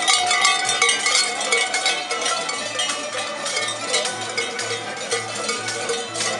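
Metal bells clanging rapidly and unevenly, many strikes a second, with their ringing overlapping.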